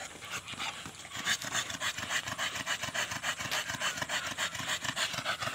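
American bully dog panting rapidly: short rasping breaths in a quick, even rhythm.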